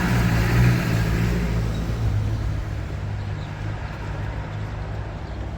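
A motor vehicle's engine running with a steady low hum, slowly getting quieter over a few seconds.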